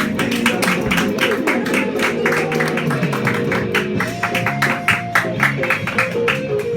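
Music: a guitar strummed in a quick, even, percussive rhythm, about four to five strokes a second, over held bass notes.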